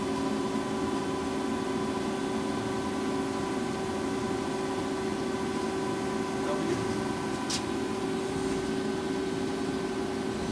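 Lucas horizontal boring mill running under power: a steady machine hum made of several held tones, with a brief high hiss about seven and a half seconds in.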